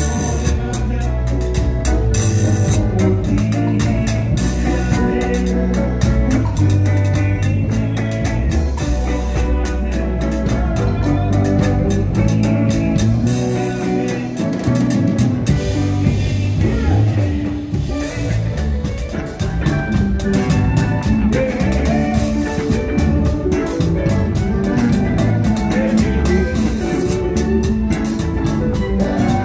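Live zydeco band playing a steady dance groove: piano accordion, electric guitars, electric bass, drum kit, congas and rubboard. The bass drops out briefly about halfway through, then comes back in.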